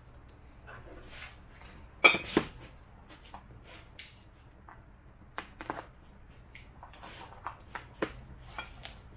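A hard plastic case of new FIC fuel injectors handled on a workbench: a loud knock about two seconds in as it is set down, then scattered small clicks and scrapes as a blade cuts its seal.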